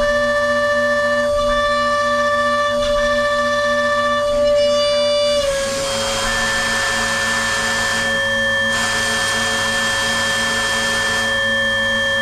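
Datron neo+ CNC milling machine's high-speed spindle whining at a steady high pitch. About halfway through, the pitch dips slightly and a loud hiss joins for several seconds, with a short break, then the hiss stops while the whine carries on.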